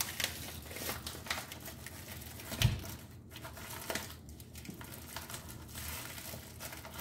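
Faint kitchen handling noises: scattered light clicks and rustles, with one dull thump about two and a half seconds in.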